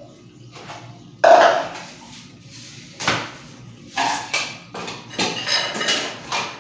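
Knocks and clattering of objects being handled. The loudest is a sharp knock about a second in, with more about three and four seconds in and a busier run of clatter near the end.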